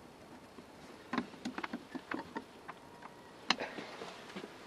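Light, scattered metal clicks and taps from a sailboat deck winch being refitted with a screwdriver, with one sharper click about three and a half seconds in.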